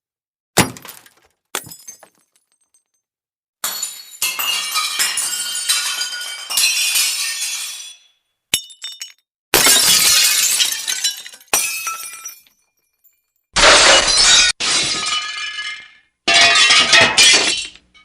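Glass breaking again and again: two short cracks near the start, then several shatters, each a sudden smash followed by tinkling shards that fade over one to three seconds.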